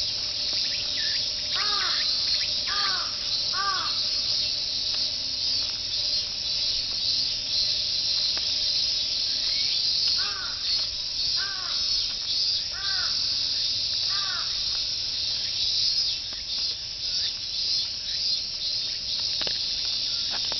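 A dense chorus of cicadas shrilling steadily, their 'mīn mīn' calls merging into one continuous high buzz. A crow caws three times early on and about five more times in a row over the middle of the stretch.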